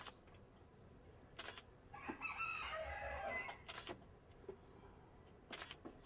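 Female Eclectus parrot vocalizing: a garbled, warbling chatter for about a second and a half in the middle, set between three short, sharp clicks or squawks.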